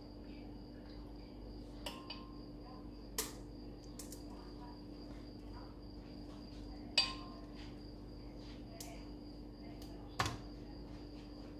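A few scattered clinks of a metal tin and a spoon against a glass blender jar while condensed milk is poured and scraped out of the tin. The sharpest clink comes about seven seconds in, and a steady low hum runs underneath.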